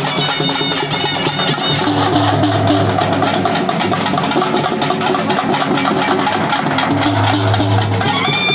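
Dappu frame drums beaten together in a fast, dense rhythm, with steady low tones under the drumming. Short high shrill notes sound about the first second and again near the end.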